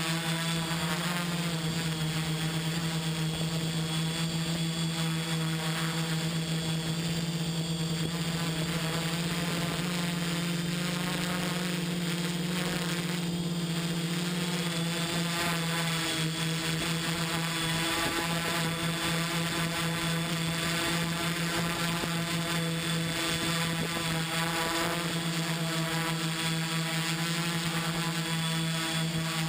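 XAircraft X650 V4 quadcopter's brushless motors and propellers droning steadily in flight, heard close up from the camera on the airframe. The pitch wavers slightly as the throttle shifts.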